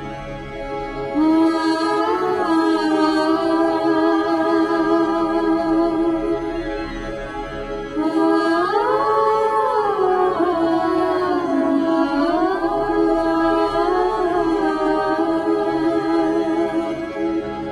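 Background music: a solo voice singing long, slowly bending melodic phrases over a steady drone, with a short break about eight seconds in.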